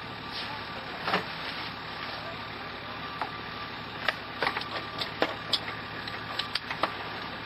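A 4WD's engine idling steadily, heard from inside the cab, with a scatter of short sharp clicks and knocks over it.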